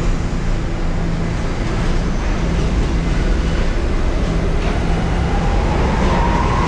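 New York City subway trains at a station platform: a loud, steady rumble and low hum. About two-thirds of the way through, a whine from a train's electric motors starts and slowly rises in pitch as the train picks up speed.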